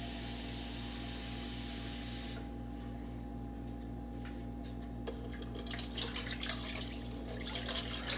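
Kitchen tap running as a cup is filled, shutting off about two seconds in; from about five and a half seconds, water being poured from the cup into a roasting pan, splashing. A steady low hum runs underneath.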